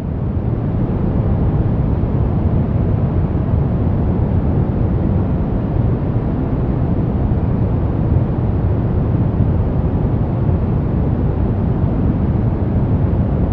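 Steady white-noise track for infant sleep, weighted toward a deep, low rumble with little hiss. It swells up over the first second, then holds even and unchanging.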